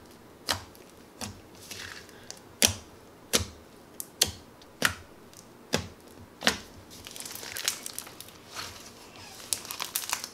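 Thick milky slime with frosted cornflakes mixed in being pressed and squished by hand, giving sharp wet pops about once or twice a second. In the last few seconds, as the slime is pulled apart, it turns to a rustling crackle of many small pops.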